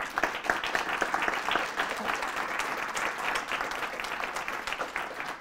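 Audience applauding: a dense patter of many hands clapping that starts abruptly and begins to thin out near the end.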